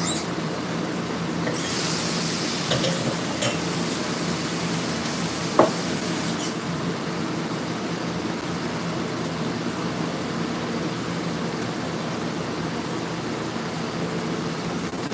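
Countertop blender motor running steadily, churning a peach margarita mix with ice. A hiss rides over it from about one and a half to six and a half seconds in, with a single sharp click partway through.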